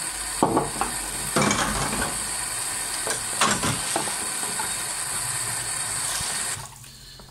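Dishes washed by hand at a stainless steel sink: a sponge scrubbing a plastic container under a steady hiss of running tap water, with a few knocks and clatters of dishware. The hiss cuts off sharply about six and a half seconds in.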